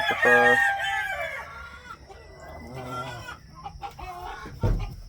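Rooster crowing: a long held call that falls away and ends about a second and a half in, followed by softer clucking from chickens. A low bump near the end.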